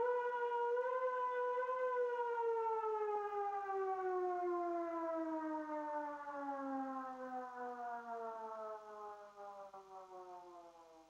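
Civil defense siren sounding a single pitched tone. It holds for about two seconds, then slowly winds down, falling in pitch and fading out near the end.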